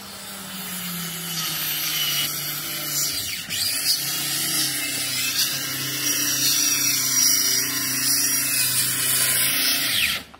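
Power tool running steadily: a loud hiss with a low hum beneath, which drops a little in pitch in the first second or two and cuts off suddenly at the end.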